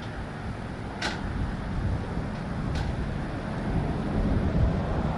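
Steady low rumble of a vehicle driving, road and wind noise, with two brief high-pitched ticks, one about a second in and another near three seconds.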